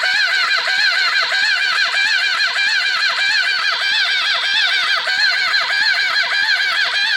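Engine cranking on its electric starter and turning over hard, the starter's whine dipping in pitch in a fast, even rhythm as each compression stroke drags it down. The laboured cranking could be a failing starter, or worn crankshaft or connecting rod bearings, which the owner fears.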